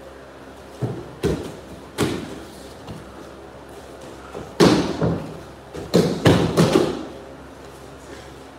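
Thuds and slaps of aikido practitioners being thrown onto tatami mats and taking breakfalls, with feet stepping hard on the mats. The sounds come as a scatter of single impacts, then a louder cluster of several in quick succession about halfway through.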